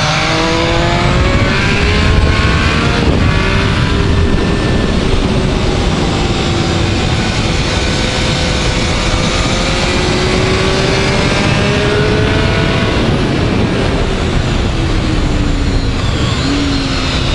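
Triumph Speed Triple's three-cylinder engine pulling hard on track, its pitch climbing and then dropping about three seconds in as it shifts up, then holding fairly steady and falling away near the end as the rider eases off. Heavy wind rush covers it throughout.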